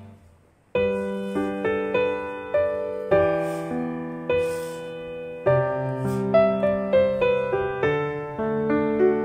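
Background music: a gentle piano tune that starts after a brief pause a little under a second in, notes struck one after another and left to ring out.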